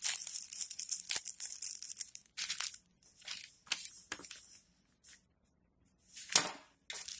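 Small cellophane bags of diamond-painting drills crinkling as they are handled. After about two seconds it breaks into a few short rustles, with one sharp tap near the end.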